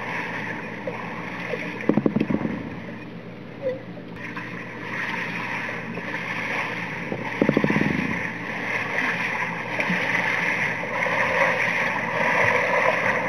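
Swimmers' strokes and kicks heard underwater in a pool: a steady muffled rush of churned water, with two short bursts of rapid low crackling about two seconds in and again past the middle.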